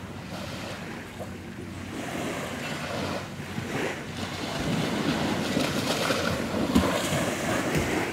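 Small waves washing onto a beach, the surf swelling and easing, with some wind noise.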